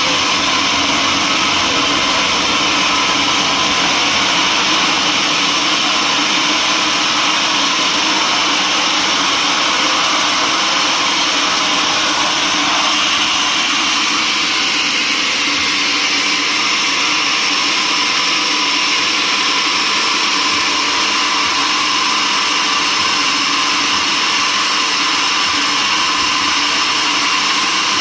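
Sawmill machinery running steadily, a constant mechanical drone with a high hiss.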